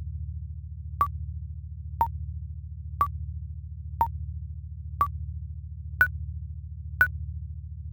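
Synthesized countdown-timer sound effect: a short click-and-beep once a second, the last three beeps pitched higher as time runs out, over a steady low pulsing drone.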